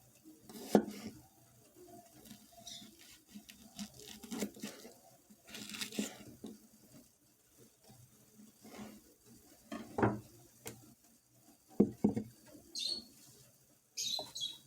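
Irregular soft knocks, taps and rustles of hands and utensils working food, with a few brief higher rustling or hissing bursts near the end.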